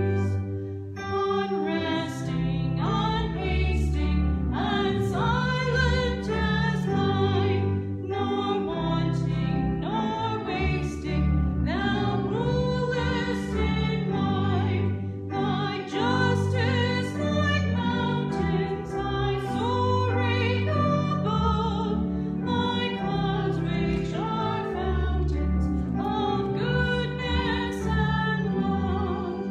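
A woman singing a hymn, her voice with vibrato, over a steady chordal accompaniment that changes chord every second or two.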